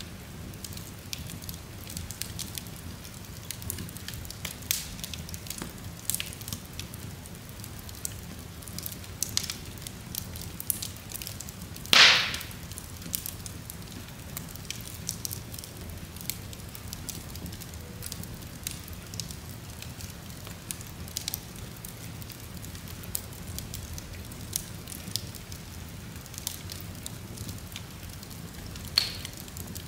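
Wood fire burning in an open fireplace: a low steady rumble of flame with scattered small crackles, a loud pop about twelve seconds in and a smaller pop near the end.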